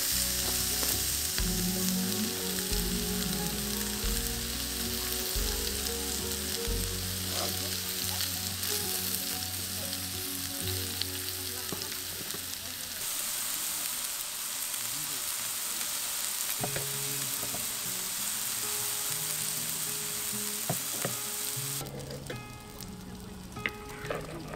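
Strips of meat and chopped garlic sizzling in a ridged grill pan on a portable gas stove, a steady frying hiss that drops away abruptly about 22 seconds in.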